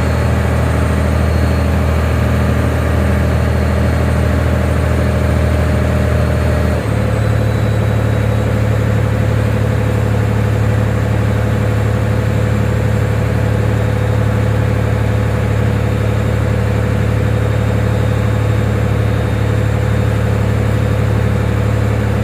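A heavy engine running steadily with a deep hum. About seven seconds in the hum changes abruptly to a different, steady pitch.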